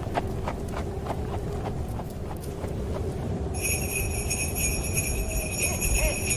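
Horse hooves clip-clopping at a steady walk, fading out over the first three seconds above a low rumble. About three and a half seconds in, sleigh bells start jingling steadily.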